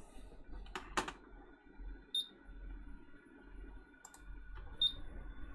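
Two short high beeps from a hot air rework station's buttons as its temperature is set, with a few light clicks of handling around them.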